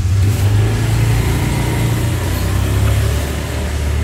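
A motor vehicle's engine running with a low, steady rumble, a little stronger in the first two seconds.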